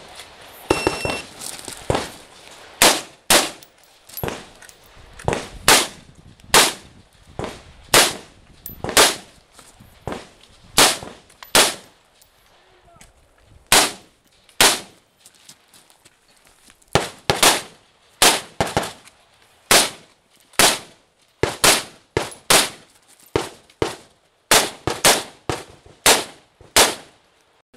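An electronic shot-timer start beep about a second in, then a long string of handgun shots, many fired in quick pairs, with two short pauses partway through.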